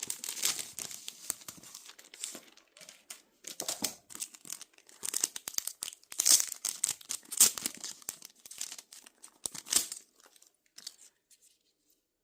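The wrapping of a new CD album being torn open and crinkled by hand, in irregular rustling bursts that stop about ten seconds in.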